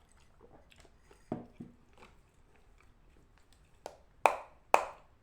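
Dried edible clay being split into slabs with a knife: a couple of soft crackles, then several sharp, crisp cracks in quick succession near the end as the block snaps apart.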